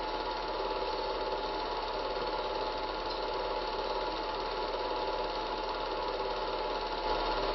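Cine film projector running: a steady, fast mechanical whirr and clatter from the film transport.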